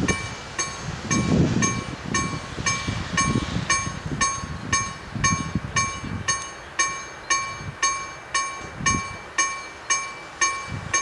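Level crossing warning bell ringing steadily, about two strokes a second, each stroke a bright ringing tone that fades quickly. An irregular low rumble runs underneath and is strongest in the first half.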